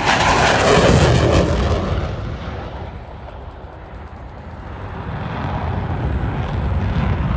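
Airplane flying past overhead: loud engine noise that drops in pitch and fades over the first few seconds, then builds up again near the end as aircraft noise returns.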